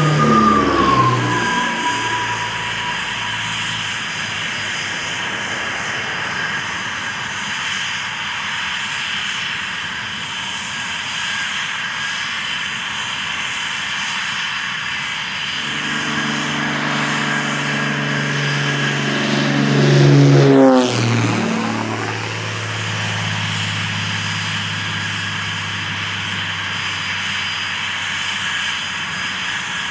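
Aircraft engines passing close by over a steady engine whine. One aircraft passes at the start, and a louder one passes about twenty seconds in, its pitch falling sharply as it goes by.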